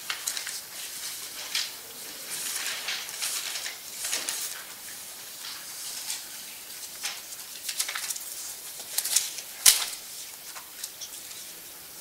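Intermittent rustling and handling noises at a desk, like papers being shuffled and moved, with a sharp click about ten seconds in, the loudest sound.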